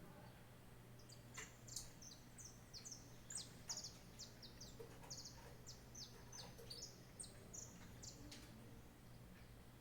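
Wild songbirds giving a faint run of short, high chirps, each sliding down in pitch, for several seconds, with a few soft taps among them.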